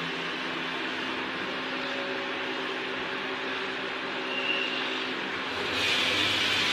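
Laser cutting machine running as it cuts mobile screen-protector film: a steady mechanical whir with a low hum. A louder hiss swells up shortly before the end.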